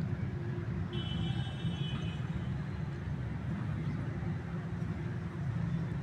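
Steady low rumbling background noise, with a faint high tone briefly about a second in. No goat call is heard.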